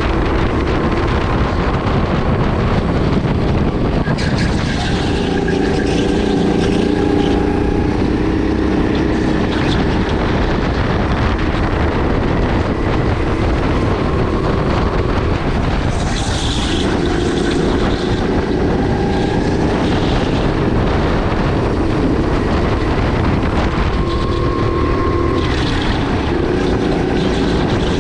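Sodi RX8 kart's 270 cc LPG single-cylinder four-stroke engine running at speed, its pitch rising and falling several times as it revs up on the straights and drops back into the corners.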